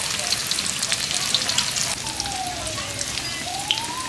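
Battered banana slices frying in hot oil: a steady sizzle full of small crackles and pops.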